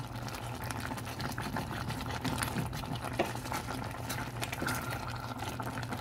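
A pot of instant noodles boiling on an electric stove, with many small bubble pops crackling steadily over a low steady hum.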